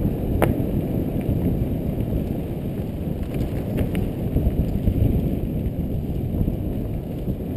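Wind buffeting the microphone of a helmet-mounted camera over the rumble of a Specialized Demo 8.1 downhill mountain bike's tyres on a dirt trail, with sharp clicks and rattles from the bike, the strongest about half a second in.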